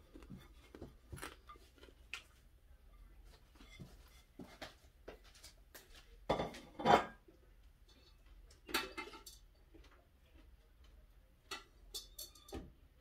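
Dishes and cutlery clinking and knocking as they are handled, in scattered short clinks, with a louder clatter lasting about a second roughly six seconds in and another near nine seconds.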